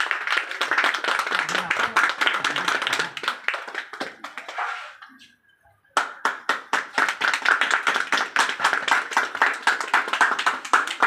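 A small group clapping by hand, in two stretches with a pause of about a second roughly five seconds in.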